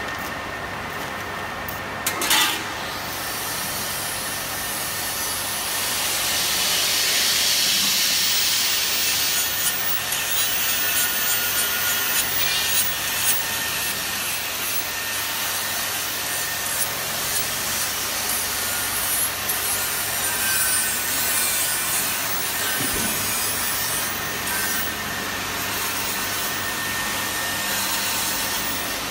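Chamber vacuum packing machine's pump running steadily under the rustle and rub of a plastic bag of cashews being handled in a stainless steel forming box, with scattered light knocks of metal and a sharp knock about two seconds in.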